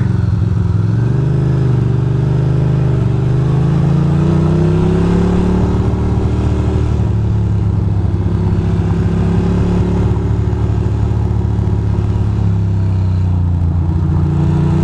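Ducati Monster 620's air-cooled L-twin engine pulling under acceleration, its pitch climbing over the first several seconds and then holding steady. Near the end it drops briefly and climbs again.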